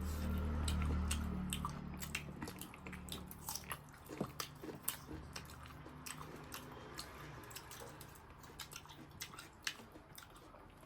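Close-miked chewing and biting of food: scattered wet mouth clicks and smacks. A low hum is loudest in the first couple of seconds and then fades.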